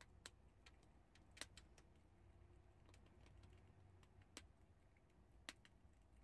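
Prairie dog crunching chickpeas: faint, irregular sharp crunches, the loudest about a second and a half in and near the end, over a low steady hum.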